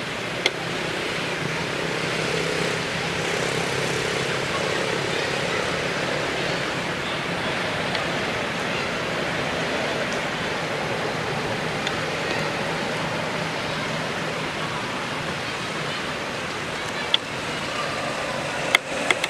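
Steady outdoor background noise, an even hiss like distant traffic or a crowd, with a few sharp clicks, most of them near the end.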